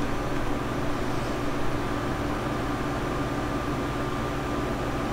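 Steady room tone: an even hiss under a constant low machine hum with a few faint held tones, like a fan running.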